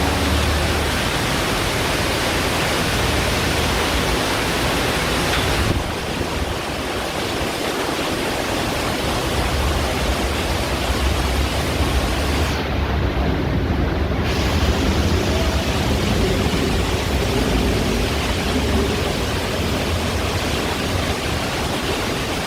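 Heavy monsoon rain pouring down, a loud steady hiss with a low rumble underneath.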